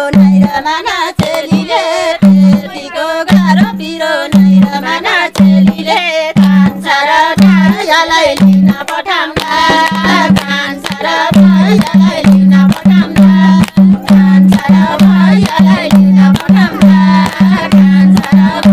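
Women singing a Nepali Teej folk song together, with a madal hand drum beating a steady rhythm under the voices.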